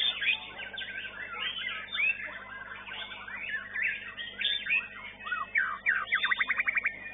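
White-rumped shama (murai batu) singing a varied, continuous song of rising and falling whistles and chattering notes, with a fast trill of rapidly repeated notes near the end.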